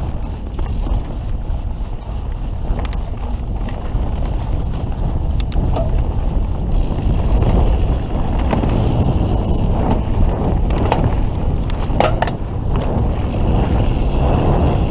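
Canyon Spectral full-suspension mountain bike riding fast down a dirt singletrack: steady wind buffeting on the microphone over tyre rumble, with scattered sharp clicks and rattles from the bike. The noise grows gradually louder as speed builds.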